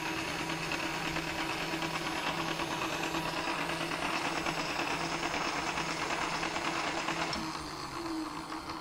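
Lagun milling machine's table power feed running at full rapid traverse: a steady motor-and-gear whir with a pulsing hum, easing off and getting quieter about seven seconds in.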